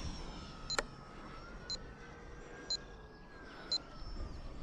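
Faint whine of the 80 mm electric ducted fan on a model F-4E Phantom jet in flight, its pitch slowly rising and then falling as it passes. A short, high electronic beep repeats about once a second over it.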